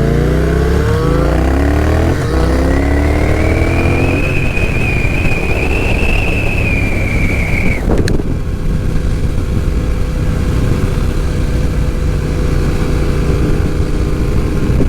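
Motorcycle engine accelerating through the gears, its pitch climbing and dropping back at each shift over the first few seconds. It then cruises at a steady speed with a high whine, a sharp click about eight seconds in, and steady road and wind noise after that.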